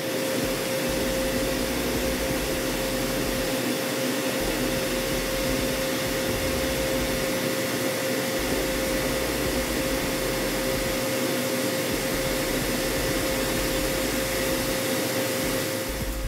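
OSG A Brand AT-2 thread mill cutting in a CNC machining centre, helically drilling and threading in one pass: a steady whine over a hiss, with a fainter higher tone.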